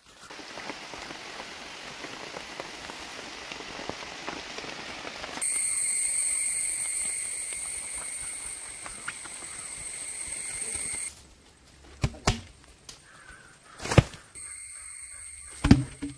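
Outdoor sounds of log-gathering work: a rustling hiss, then a steady high-pitched buzz for about six seconds, then a few sharp knocks and thuds, the loudest about two seconds before the end.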